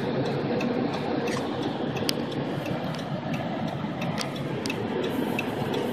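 Steady road and engine noise of a car driving on a snow-covered highway, heard from inside the cabin, with a faint regular ticking a few times a second.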